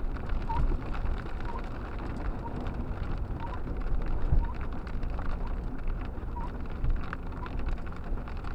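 Hail and rain drumming on a car's windshield and body, heard from inside the cabin, as a dense patter of small hits over the low rumble of the car driving through slush and water. The windshield wipers sweep the glass with a faint short squeak about once a second.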